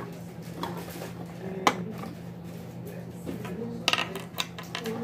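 Hard plastic toy-figure pieces clicking and knocking against each other and a wooden tabletop as they are handled: a few scattered sharp clicks, the clearest about a second and a half in and just before four seconds, over a steady low hum.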